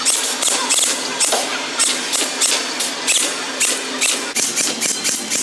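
Toy rifles firing at a shooting gallery: a run of short, sharp shots, about two to three a second and unevenly spaced.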